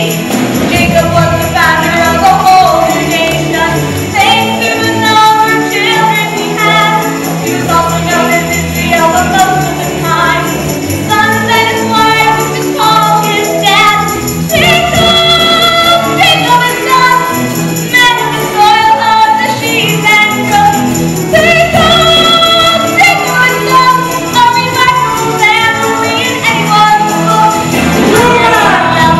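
A chorus of voices singing a stage-musical number over full musical accompaniment.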